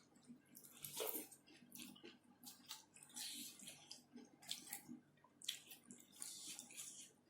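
Close-up wet eating sounds: chewing and lip smacking on shrimp and petai beans, in short irregular bursts.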